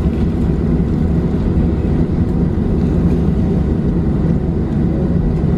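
Cabin noise of a Boeing 737-800 taxiing, heard from a seat beside the wing: a steady low rumble with a faint hum from its CFM56 engines at idle.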